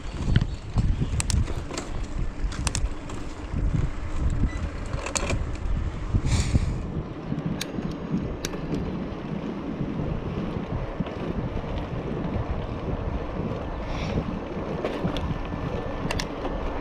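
Wind buffeting the microphone of a bicycle in motion, over a steady low rush of riding, with a few scattered sharp clicks and rattles.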